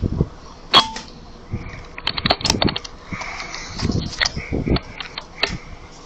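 A run of sharp clicks and knocks, the loudest about a second in with a brief ring after it, then a cluster of quicker clicks around the middle: handling noise of the rifle and its scope as the gun is moved.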